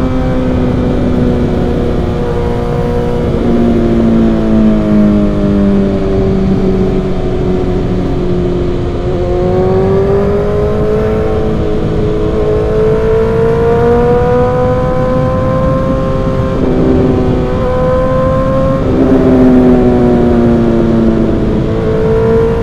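Suzuki GSX-R1000's inline-four engine through an M4 exhaust, heard from the bike while riding. The engine speed rises and falls, climbing steadily through the middle, then drops sharply twice in quick succession in the later part before climbing again near the end.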